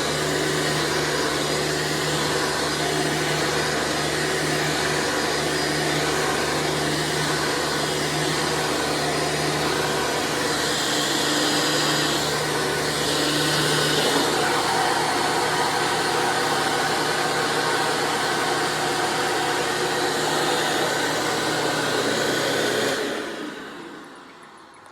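Hoover Runabout Deluxe vacuum cleaner running steadily with a loud motor hum and rushing air; the airflow grows hissier for a few seconds midway and the hum shifts in pitch. About two seconds before the end it is switched off and winds down.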